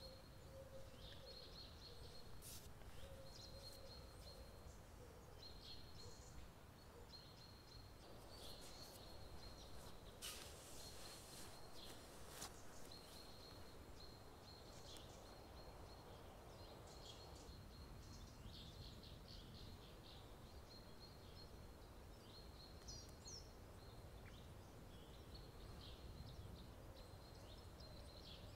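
Quiet forest ambience with small birds calling: a thin high note repeated again and again, and a few brief higher chirps.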